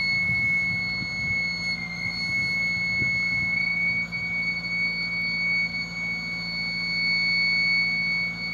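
Electric hoist motor of a truck-mounted telescopic tower mast running steadily to raise the mast. It gives a constant high whine over a low hum.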